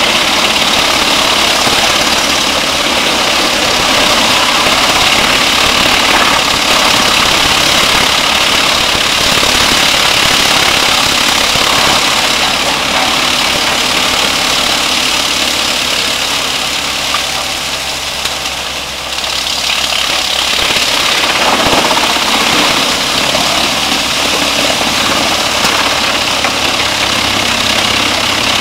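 Diesel-driven Musmax wood chipper running under load, chipping brush and branches: a loud, continuous grinding of engine and cutting. About two-thirds of the way through it eases for a couple of seconds, then the chipping picks up again.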